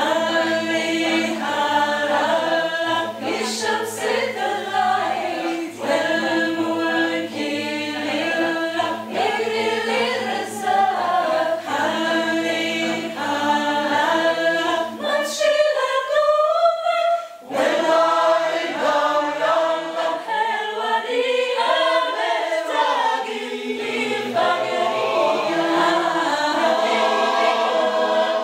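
Mixed choir singing an Egyptian song in Arabic, unaccompanied, with a held low drone under the melody. About halfway through the low voices stop for a couple of seconds while the upper voices glide upward, then the full choir comes back in.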